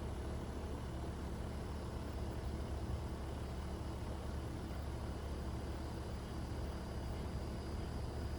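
Steady low rumble with an even hiss over it: outdoor ambience as a storm approaches.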